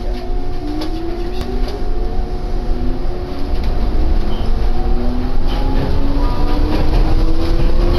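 Rokko Liner automated guideway train heard from inside the car as it pulls away and speeds up. The electric motor whine rises in pitch over a low running rumble, growing louder as it gathers speed.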